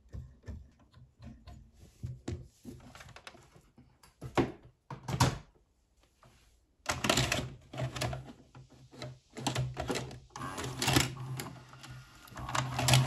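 Small plastic and metal clicks of a Sony SLV-X312 VCR's tape mechanism being handled, with two louder clacks around four and five seconds in. From about seven seconds in, the VCR's cassette-loading motor runs with a steady hum under repeated clicks and clacks as a VHS cassette is taken in and lowered onto the deck.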